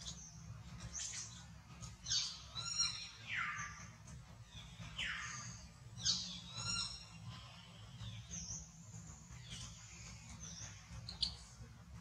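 Baby macaque squealing: a series of high-pitched cries, several sliding down in pitch, loudest about two and six seconds in.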